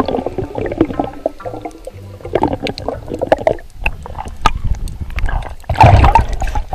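Muffled underwater gurgling and bubbling picked up by an underwater camera, with scattered clicks and a louder burst about six seconds in.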